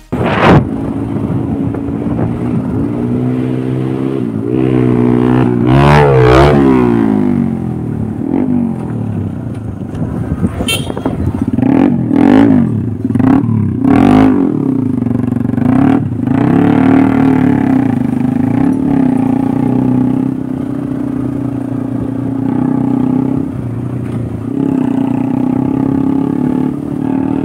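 Motorcycle engine running on the move over a rough road. Its pitch rises and falls with the throttle in the first half, then holds fairly steady, with a few sharp knocks from the ride.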